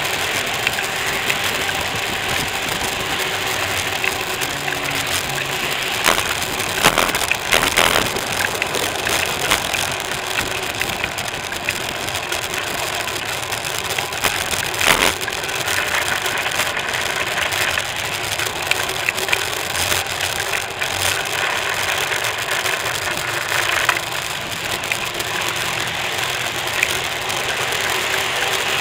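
Steady rattle and rumble of a bicycle rolling over a paved path, heard through a camera mounted on the bike, with a few sharper knocks from bumps about a quarter of the way in and again near the middle.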